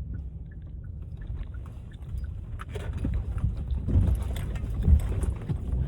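Low rumble inside a moving vehicle's cabin. It grows louder about three seconds in, with a few short bumps and knocks as the vehicle rolls over uneven ground.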